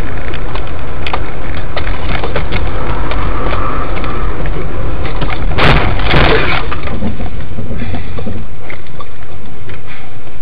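Dash-cam audio of a car driving, with a loud steady rumble of road and engine noise. A sudden crunching impact comes about halfway through, followed by a brief crackle.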